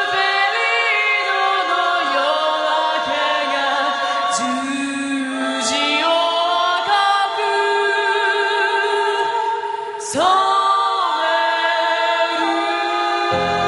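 A chorus of women's voices singing a song together. Near the end the singing gives way to other music with deep low notes.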